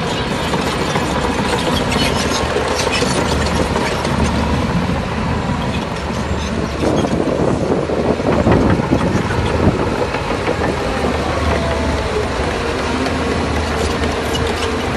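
Crawler bulldozer at work: its diesel engine runs steadily under the clanking and rattling of the steel tracks, growing heavier for a few seconds around the middle.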